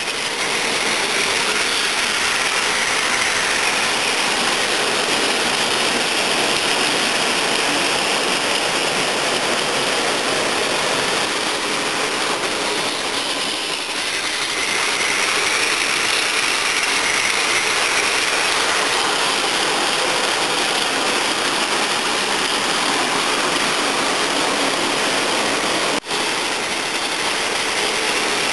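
Plarail toy trains running: the small battery motors and gearboxes whir steadily while the wheels rattle along the blue plastic track. A momentary break in the sound comes near the end.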